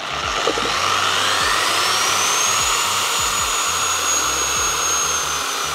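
Electric car polisher spinning a compound-clogged microfibre pad against the dimpled surface of a System 4000 pad washer. The motor whine rises over the first few seconds, then holds steady over a scrubbing hiss.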